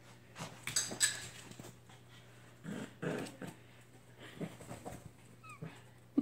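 A Pomeranian and a puppy growling and scuffling as they play-fight over a fabric dog bed, in short irregular bursts, with a brief falling whine near the end.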